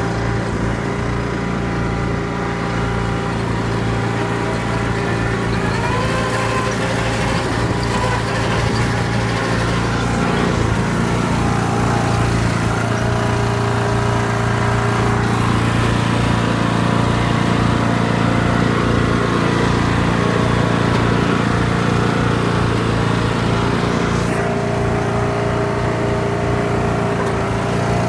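Toro riding lawn mower's engine running steadily, getting a little louder about twelve seconds in.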